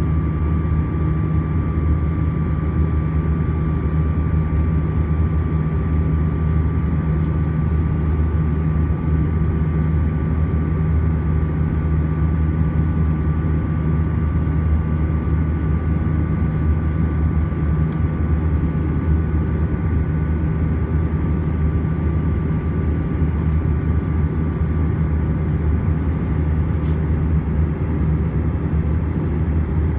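Airbus A320 cabin noise in the climb: a steady deep rumble of engines and airflow, with a steady whine over it.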